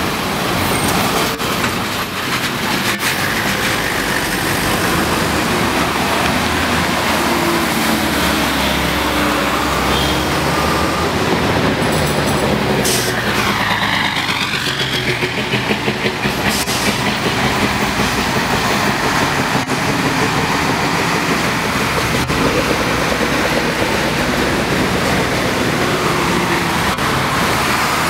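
Street traffic: converted school buses and cars driving past, with heavy bus engines running and tyre noise. A brief wavering high-pitched sound comes about halfway through.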